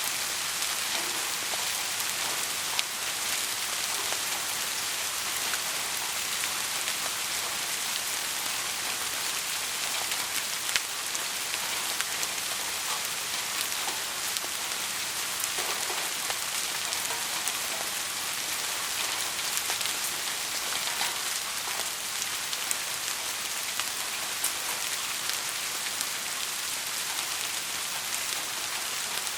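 Heavy rain falling steadily, a dense hiss with many small drop ticks and an occasional louder drop striking a surface.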